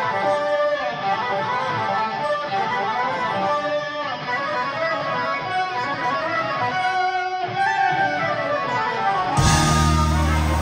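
Live electric guitar playing a fast, winding melodic passage with no bass or drums under it; about nine seconds in, the full rock band comes in with bass and drums.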